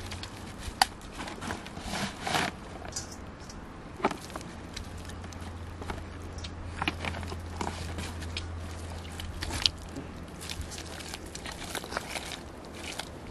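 Scattered clicks, knocks and rustles of gear being handled: metal bowls clinking and a plastic sack crackling. Near the end come footsteps through mud. A faint low steady hum runs underneath.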